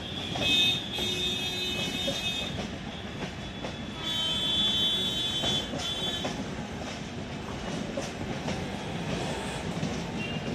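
Humsafar Express passenger coaches rolling past, wheels clacking over rail joints with a steady rumble. High-pitched wheel squeal rises twice, in the first couple of seconds and again about four seconds in.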